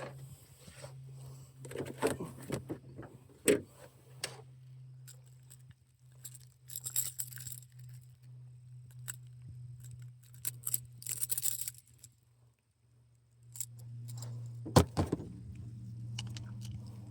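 Metal tackle being handled: jangling and clicking, with a couple of sharper knocks, over a steady low hum.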